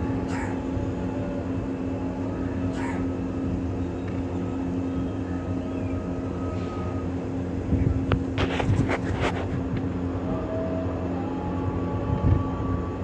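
A steady mechanical hum that holds one low pitch throughout, with a few sharp clicks, several of them together about eight to nine seconds in.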